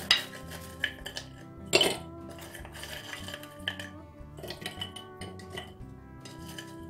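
Pelmeni dropped by hand into ceramic clay pots, making scattered knocks and clinks; the loudest come at the start and near two seconds in. Background music with sustained notes plays underneath.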